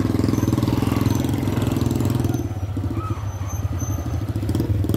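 Small engine running steadily at idle nearby, a low, rapid chugging.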